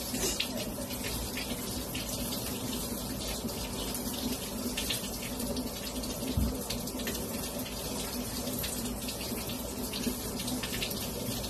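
Kitchen tap running steadily while hands are washed under the stream.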